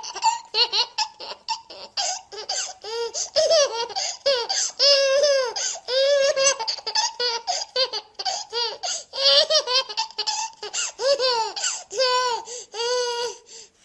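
A baby laughing hard: a long run of short, high-pitched laughs, two or three a second, that stops at the very end.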